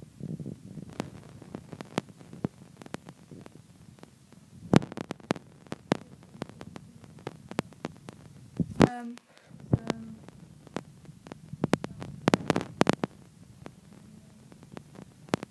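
Handling noise: scattered light clicks and taps at irregular intervals as hands work in and around a small plastic tub, over a low steady hum. A brief vocal sound comes about nine seconds in.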